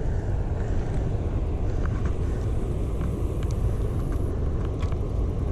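Steady low outdoor rumble with a few faint ticks scattered through it.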